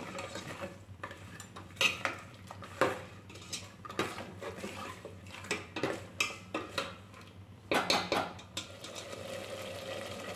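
Steel ladle stirring a thick sauce in a stainless steel pot, knocking and scraping against the pot's sides and bottom in about a dozen irregular clinks. The clinking stops near the end.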